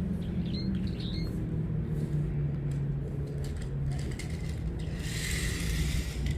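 A bird gives two or three short, high chirping calls about half a second to a second and a half in, over a steady low hum. Near the end comes a burst of hiss.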